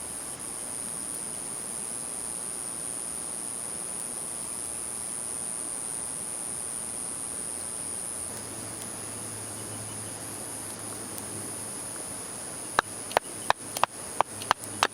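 Crickets chirring: a steady high-pitched insect chorus. Near the end, seven sharp clicks come at about three a second.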